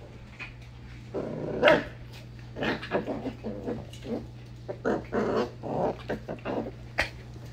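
Pembroke Welsh corgi growling and giving short barks in a series of bursts, loudest about a second and a half in, guarding its spot under a shelf from a puppy.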